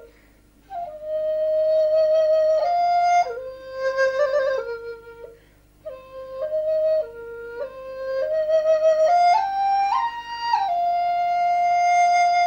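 Background music: a solo flute playing a slow melody in held notes with a slight vibrato, pausing briefly between phrases and ending on a long held note.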